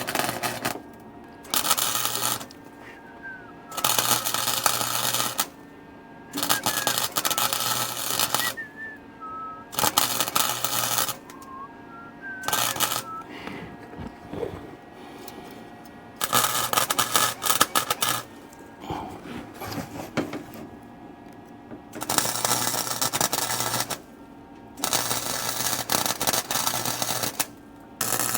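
Wire-feed welder laying short stitch welds on a car's floor-pan seams: about ten crackling, buzzing bursts of one to two seconds each, with short pauses between them.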